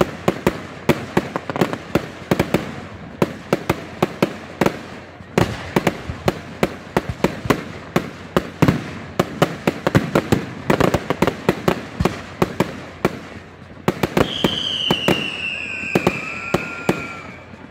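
Fireworks bursting in a rapid run of sharp cracks and pops, several a second. About three-quarters of the way through, a long high whistle from a whistling firework slowly falls in pitch, with a fainter lower whistle joining near the end.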